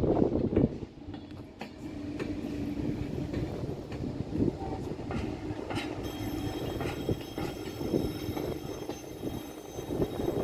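A train moving along the tracks: a low rolling rumble with wheel knocks. About six seconds in, a high-pitched steady whine joins it.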